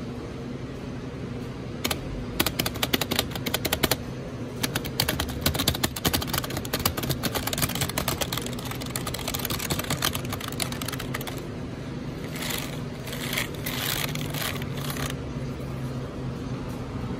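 Keys of an old, grimy full-size computer keyboard clattering under fingers drummed rapidly across them: a fast, dense run of key clicks for about nine seconds, then a few slower clusters of presses before it stops near the end.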